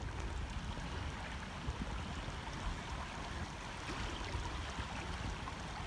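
Steady rush of a shallow creek running over a rocky bed.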